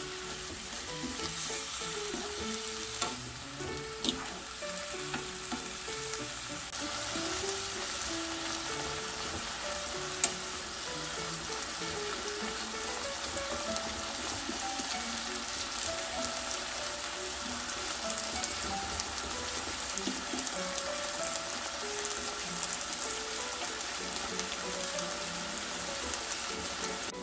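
Sliced beef bulgogi with onion, carrot and green onion sizzling steadily in a frying pan while being stirred with a wooden spoon. A few sharp clicks of the spoon against the pan, around three and four seconds in and again near ten seconds.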